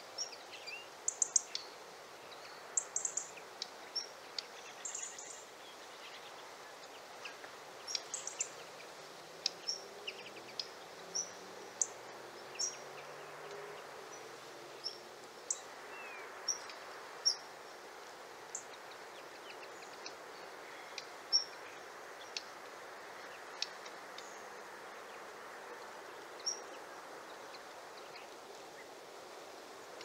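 Black redstart giving short, high, thin call notes every second or two, a few of them in quick clusters in the first several seconds, over a steady background hiss.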